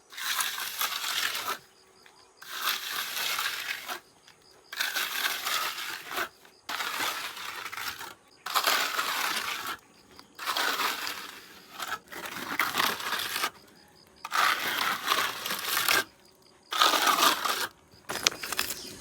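Masonry work with a steel trowel scraping and slapping mortar onto brick. It comes as about eight short stretches of one to two seconds, each cut off abruptly by a brief silence.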